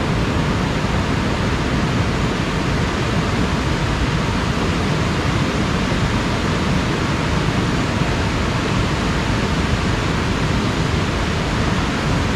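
Fast-flowing rocky river rushing over stones: a loud, steady wash of water noise.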